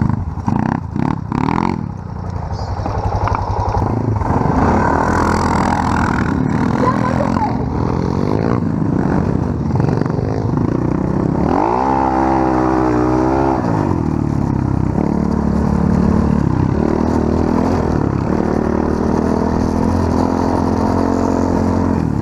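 Pit bike engines running, with one revving up and back down about twelve seconds in.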